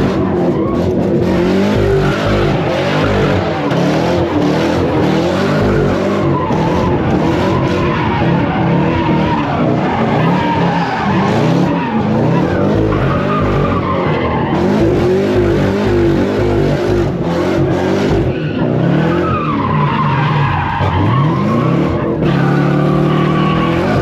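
Car engines revving hard and tyres squealing as cars spin donuts, the engine pitch sweeping up and down over and over. Near the end a steadier engine note takes over.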